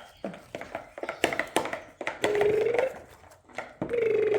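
Slime being squeezed and worked by hand, a quick run of sharp clicks and pops, followed by a voice humming a held note twice, the second longer and gently wavering.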